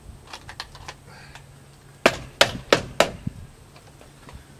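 Sharp knocks and taps: a few faint ones in the first second, then four loud knocks in quick succession about two seconds in, and a softer one just after.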